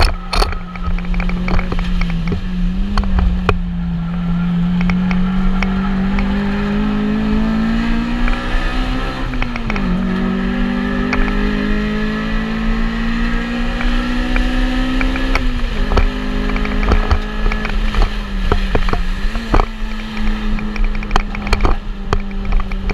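Engine of a stripped-out track car heard from inside the cabin, running hard under load. The revs climb slowly, drop sharply about nine seconds in, climb again, and fall back about fifteen seconds in, with scattered clicks and rattles.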